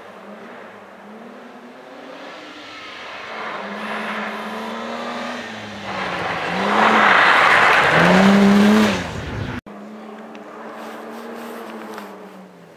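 A historic rally car's engine revving hard, its pitch rising and falling with gear changes and throttle. It grows louder as the car slides through the snowy corner, with a rush of tyre and road noise as it passes close, about seven to nine seconds in. Then the sound cuts off abruptly, and another rally car's engine is heard fainter in the distance, revving up and down.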